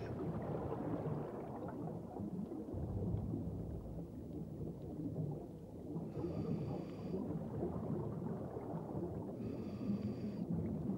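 Scuba diver breathing through a regulator underwater: two hissing inhalations of about a second each, with a thin whistling tone, about six and nine and a half seconds in, over a continuous low rumble of exhaled bubbles and water noise.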